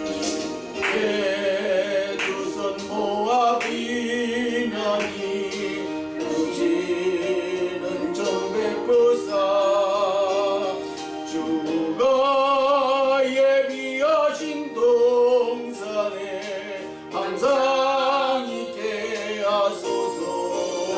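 Gospel song sung with vibrato over instrumental accompaniment.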